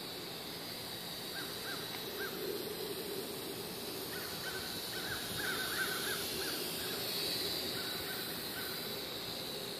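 WLtoys V959 quadcopter's small motors and propellers whining steadily as it flies low, the whine growing louder about seven seconds in. A bird calls in short repeated notes throughout, most densely in a run about four to six and a half seconds in.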